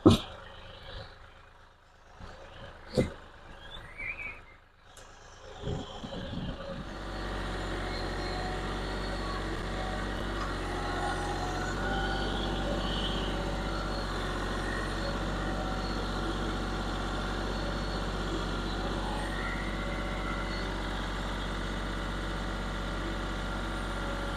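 A few sharp knocks of heavy wooden timbers being shifted on pallet forks, then from about seven seconds in the diesel engine of a Kioti CK4020 compact tractor running steadily as it carries the timbers on its loader.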